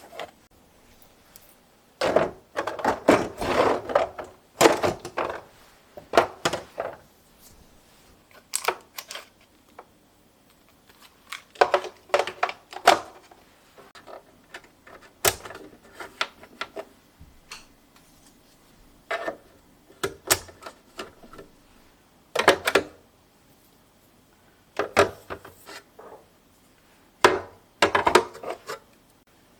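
Hard household items, such as containers and lids, being handled and set down: bursts of clicks, knocks and light clatter separated by short pauses.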